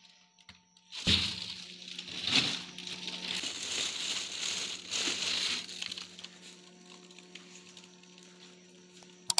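Crackling, crumpling rustle of plastic bags and frosty freezer contents as trays are shifted inside a chest freezer, starting about a second in and dying away after about six seconds, over a steady low hum.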